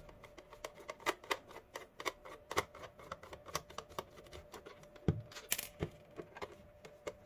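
Irregular small clicks and taps of a screwdriver undoing screws in the plastic housing of a battery-powered car tyre inflator, with a dull knock about five seconds in and a short scrape just after.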